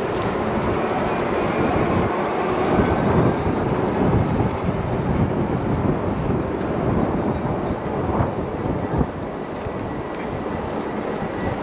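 Riding noise of a Super73 RSD electric bike going off-road: a steady rushing rumble that dips a little about nine seconds in.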